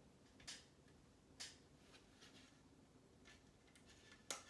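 Small plastic Lego pieces being handled and set down, giving a few faint, sharp clicks, with the sharpest near the end.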